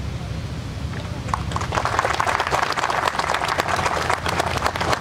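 Audience applause: many hands clapping unevenly, starting about a second in and carrying on, over a steady low hum.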